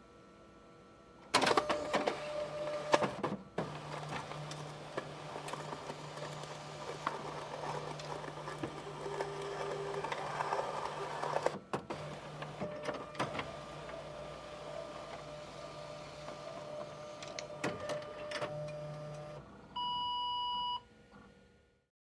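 Fax machine receiving and printing: the print mechanism and paper feed run with a steady whirr and many clicks, starting about a second in and dropping out briefly near the middle. Near the end there is a single beep about a second long.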